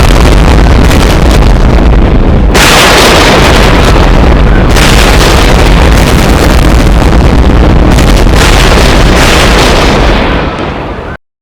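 Very loud, distorted rumbling noise like a run of explosions, changing in texture a few times. It cuts off abruptly about eleven seconds in.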